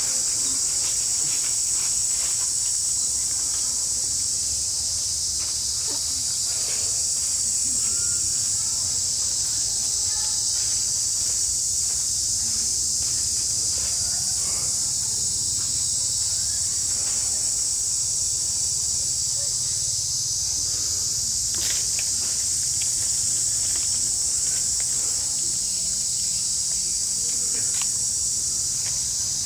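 Steady high-pitched chorus of insects, with a low rumble underneath and a few faint scattered clicks.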